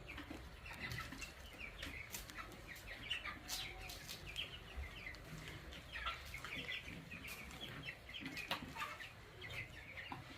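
A flock of young broiler chicks, two to three weeks old, peeping continuously in many overlapping short calls.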